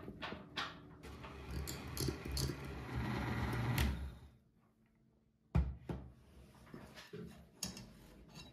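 A spatula scraping and tapping around a glass bowl of whipped cream, then an electric hand mixer whirring in the cream for a couple of seconds until it cuts off. After a short pause comes a single loud knock, then a few lighter clinks.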